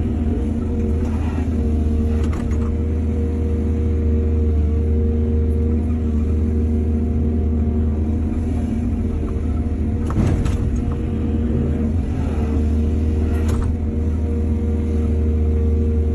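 Heavy diesel engine of an excavator running steadily under work, with a few clanks of metal, the loudest about ten seconds in.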